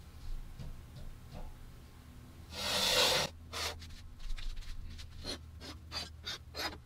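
Rusty steel card-shuffler parts being handled on a wooden workbench: one loud scraping rub about two and a half seconds in, then a run of light clicks and taps.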